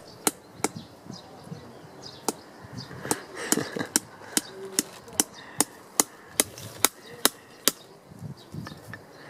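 Scissors snipping string: a run of sharp, irregularly spaced clicks, about two a second.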